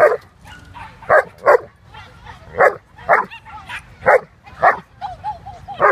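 A dog barking in short, sharp barks, about eight of them at uneven intervals, with a brief wavering whine a little after five seconds in.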